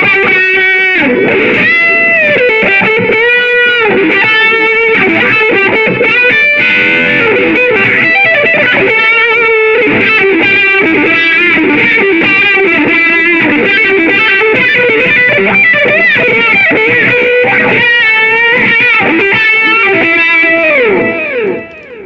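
Electric guitar played through a Line 6 POD HD300 multi-effects pedal: a lead line of sustained notes with string bends, dying away near the end.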